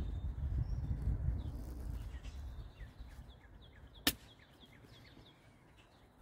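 Long-handled shovel digging soil in a trench: a low rumble of scraping and thuds in the first couple of seconds, then a single sharp click about four seconds in. A small bird chirps in quick, short notes in the background.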